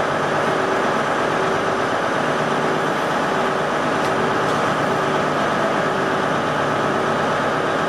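Steady drone of a train, an even hum that keeps one pitch and level.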